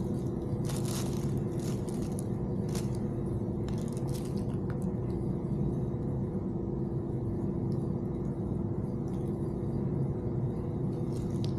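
Steady low background hum with a constant tone. A few light clicks and scrapes in the first five seconds come from wires and a crimp cap being handled.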